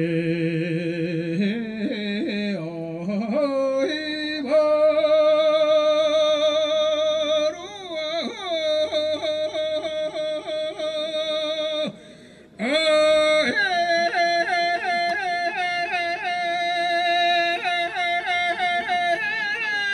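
Mongolian long song (urtyn duu) sung by a solo voice. Long drawn-out notes carry quick wavering ornaments and climb in steps, with one short breath break about twelve seconds in before the line resumes.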